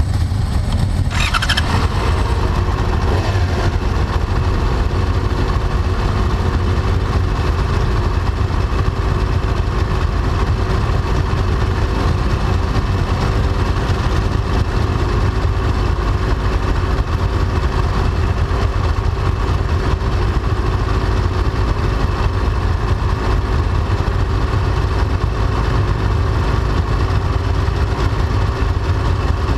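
Yamaha R6 inline-four race bike idling steadily at close range, with other race motorcycles idling around it.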